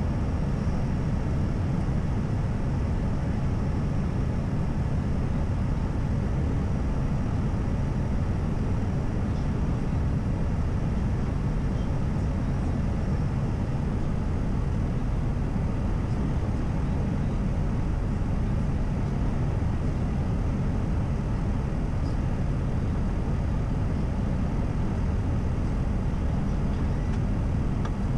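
Airbus A320 in flight: a steady, even rush of airflow and jet engine noise, heard from on board.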